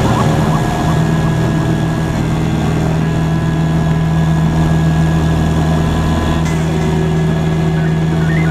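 Cessna 172SP's four-cylinder Lycoming IO-360 engine and propeller running with a steady, unchanging low drone, heard from a camera mounted on the wing.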